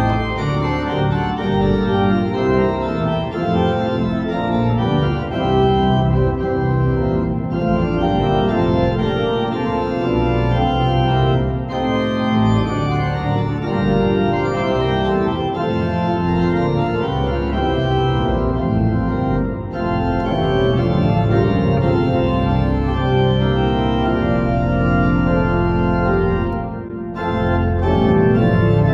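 Church pipe organ playing an organ piece in full, sustained chords, phrase after phrase, with short breaks between phrases.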